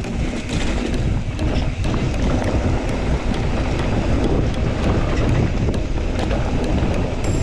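Wind buffeting the microphone with a steady low rumble, as from riding a bike along a trail.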